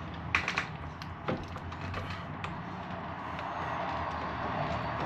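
A few light clicks and taps from deadbolt lock parts being handled and fitted together, the sharpest in the first second and a half, over a steady background hum.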